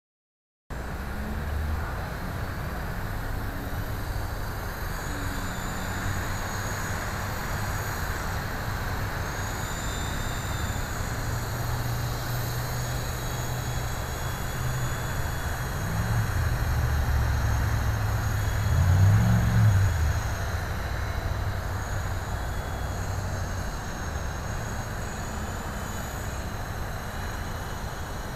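Electric coaxial RC helicopter (eSky Big Lama) flying: a steady high whine from its motors and gears over the low hum of its twin rotors, starting about a second in. The rotor hum rises and falls in pitch a little past the middle, where it is loudest.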